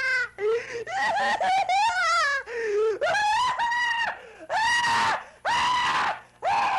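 A man screaming in mock pain over a hurt knee: a string of loud, high-pitched cries, about eight, each under a second, some wavering.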